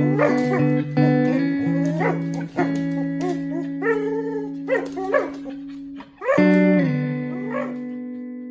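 A husky makes a series of short rising-and-falling vocal sounds while pulling on a tug rope toy, over background music with held, plucked-string tones.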